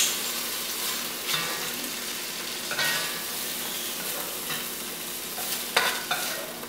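Lamb cubes sizzling in rendered lamb fat in an enamel-coated cast iron Dutch oven: a steady frying hiss. A few short scrapes and knocks of a spoon against the pot as the browned pieces are lifted out, about a second and a half in, near three seconds and near six seconds.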